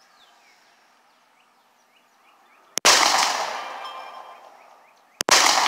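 Two pistol shots about two and a half seconds apart, each a sharp crack followed by a long echo that dies away over a couple of seconds.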